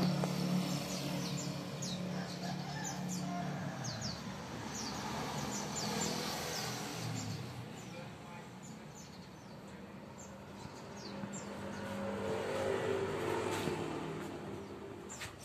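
Outdoor lane ambience: small birds chirping repeatedly in short, high, falling notes over the first half. A low motor hum fades out about four seconds in, and another engine hum swells and fades a little after twelve seconds.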